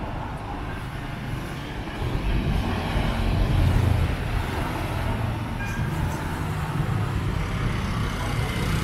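Road traffic, with a large vehicle's engine rumbling past close by, loudest about four seconds in.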